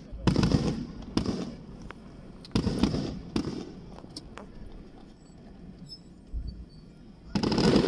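Aerial firework shells bursting in a volley: sharp booms with a rolling rumble after each, two close together near the start, two more around two and a half to three and a half seconds, a fainter one around six seconds and another loud one near the end.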